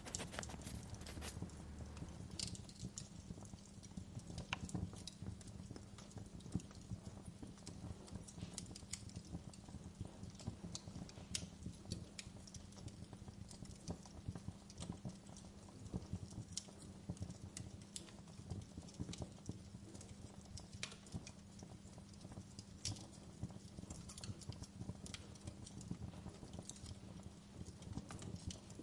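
Fireplace crackling, with irregular small pops and snaps over a steady low rumble.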